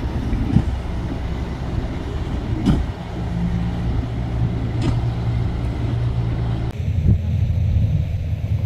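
A boat engine running steadily with a low, even drone, with a few faint knocks. The sound changes abruptly near the end, as the hiss above the drone drops away.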